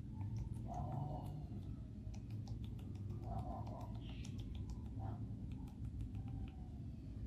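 Homemade slime being worked by hand, giving scattered small sticky clicks and pops over a low steady hum.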